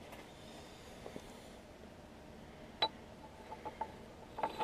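Quiet shop room tone with a few faint metallic clicks and clinks of metal parts being handled at a milling vise, the sharpest click just under three seconds in and a small cluster near the end.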